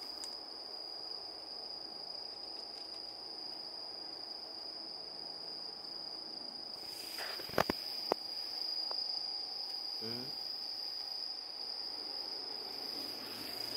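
Crickets trilling in one steady, unbroken high-pitched note, with a couple of sharp clicks about seven and a half seconds in.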